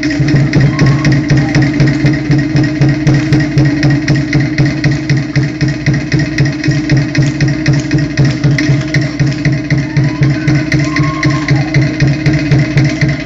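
Drum-driven music with a fast, steady beat, struck percussion over a sustained low drone.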